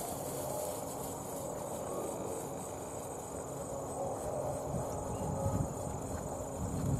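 Hoofbeats of two ridden young racehorses trotting and cantering on grass: soft, uneven thuds that grow louder near the end. A steady high-pitched insect drone runs underneath.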